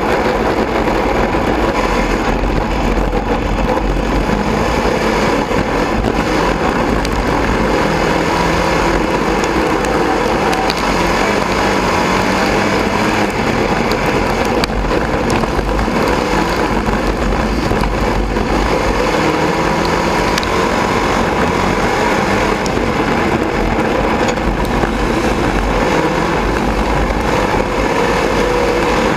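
Sport modified dirt-track race car's engine heard from inside the cockpit, running at reduced pace under a caution, its pitch rising and falling gently over steady wind and chassis noise.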